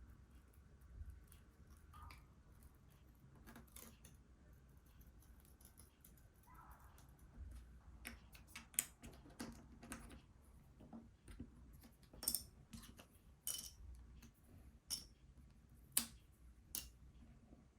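Faint, scattered clicks and light taps of small repair tools and parts being handled while a tablet is taken apart, with a few sharper clicks in the second half.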